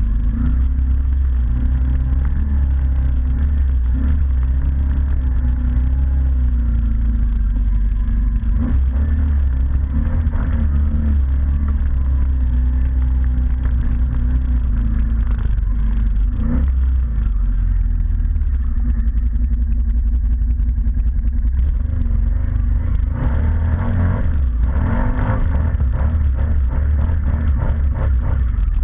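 ATV engine running steadily while under way, its pitch wavering a little, with a few brief knocks or clatters along the way.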